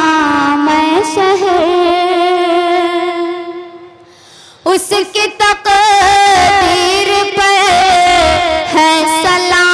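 A woman singing a ghazal-style geet in a melismatic style. She holds a long wavering note that fades away about four seconds in, then starts again with a few short syllables and another long held note.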